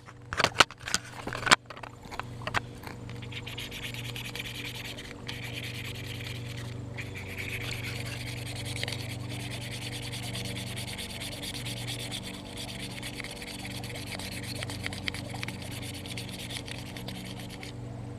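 A scratch-off game card being scratched off, a steady dry rubbing scrape that goes on for many seconds, after a few sharp handling clicks at the start.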